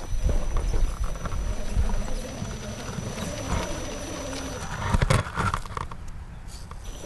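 Axial SCX10 RC rock crawler driving over loose dirt and rocks, its tyres and chassis crunching and knocking irregularly, with a louder knock about five seconds in.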